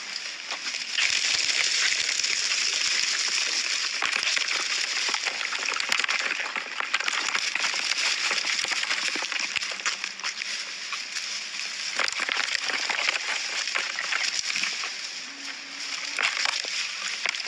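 Water sloshing and splashing, a steady hiss with many small crackles and clicks through it.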